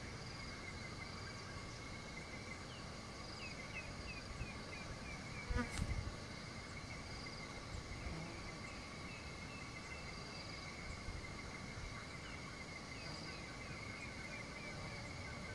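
Steady insect chorus of several continuous high tones, with a short high pulse repeating every second or so and runs of quick falling chirps. A brief thump about a third of the way in.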